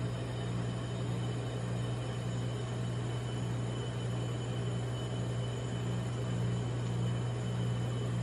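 Refrigeration compressor of a rolled-ice-cream cold-plate machine humming steadily: a low, even drone with a fainter upper hum that swells and fades.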